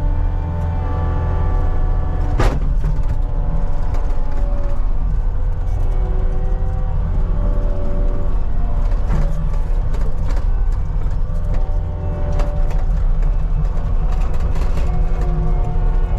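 CAT 279D compact track loader's diesel engine running steadily under load while pushing dirt, with occasional clanks from the machine, the sharpest about two and a half seconds in.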